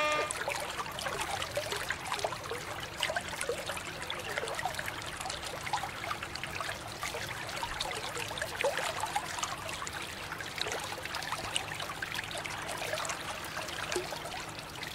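A steady stream of running water pouring and splashing over a toy race car as it is rinsed by hand.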